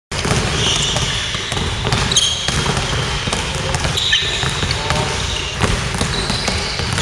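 Several basketballs being dribbled on a hardwood gym floor in a busy practice. Short high squeaks come near the start, about two seconds in and about four seconds in, typical of sneakers on the court.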